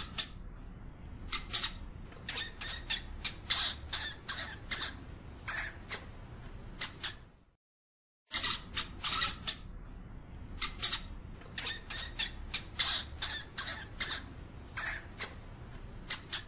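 European hamster (Cricetus cricetus) squeaking: quick runs of short, shrill squeaks, some packed close together. The calls break off about seven seconds in and start again about a second later.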